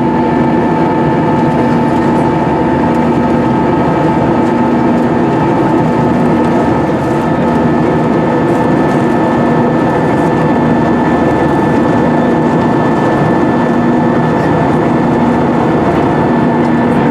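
Airbus A320-200 cabin in flight: steady jet engine and airflow noise with a constant whine over it and a low hum that wavers about once a second.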